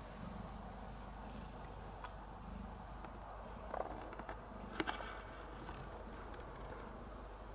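Domestic cat purring steadily, the purr swelling and fading in a slow, regular rhythm. A few sharp clicks come about halfway through.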